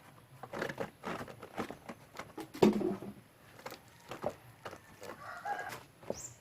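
A run of light knocks and clicks, with one loud clunk about two and a half seconds in.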